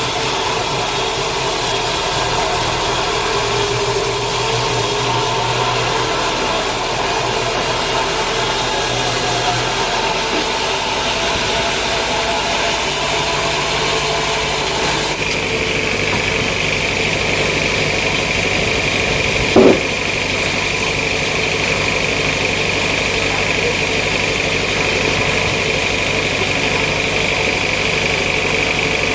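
Sawmill machinery running steadily, its pitch and texture shifting about a third and about halfway through, when a steady high whine sets in. One brief loud sound stands out about two-thirds of the way through.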